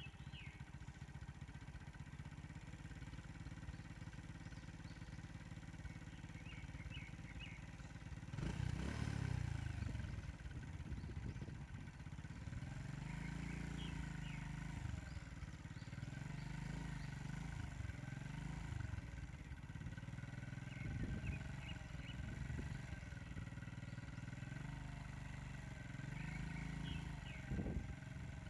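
A steady low rumble that swells briefly about a third of the way in, with a bird giving a short high chirping phrase four times, about every seven seconds.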